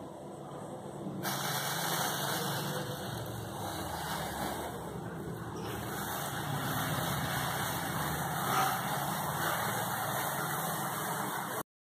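Steady hiss of a gas stove burner heating a steel pot of milk that is starting to foam toward the boil. The sound gets louder about a second in and cuts off suddenly near the end.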